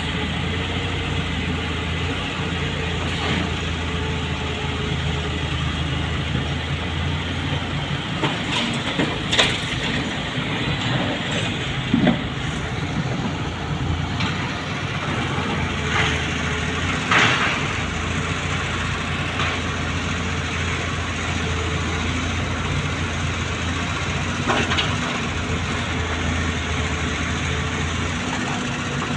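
Wheel loader's diesel engine running steadily, with a handful of short metallic clanks and knocks standing out over it.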